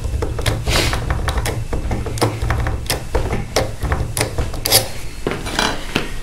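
Key blank turned in a tube handle being wiggled and twisted in an ASEC euro profile cylinder lock for impressioning: irregular metallic ticks and short scrapes as the pins bind and mark the blank.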